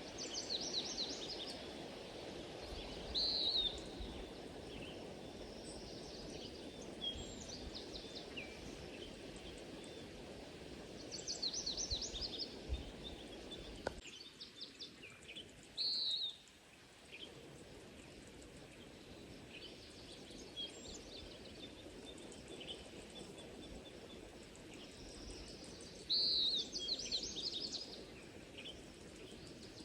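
Several songbirds singing, with repeated trills and short chirps, over a steady low background rumble. The rumble cuts off abruptly about halfway through and returns fainter.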